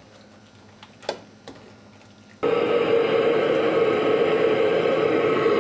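A utensil clinks lightly about a second in. A little over two seconds in, a restaurant wok station starts a loud, steady rushing noise with a low hum that switches on suddenly and holds.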